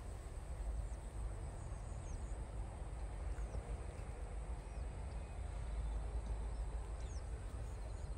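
Open-field ambience: a steady low rumble of wind on the microphone, with faint, short, high bird chirps a few times.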